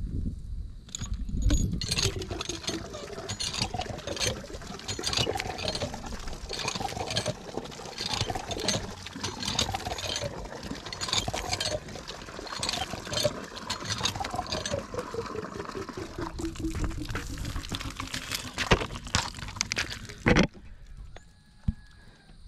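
Water pouring and splashing in repeated dousings, with short sharp splashes and a gurgling pitch that slides down as it runs; it stops abruptly near the end.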